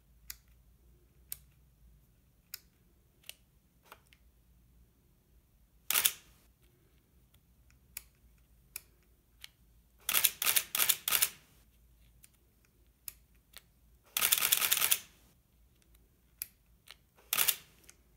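Canon EOS 3 35mm film SLR firing its shutter with motor-driven film advance: one frame about six seconds in, a quick run of frames around ten seconds, a longer unbroken burst around fourteen seconds, and one more frame near the end. Between them come small sharp clicks of the camera's buttons and dial being set.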